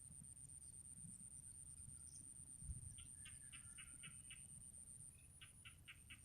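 Faint bird call: two runs of quick repeated notes, the second near the end, over a low background rumble.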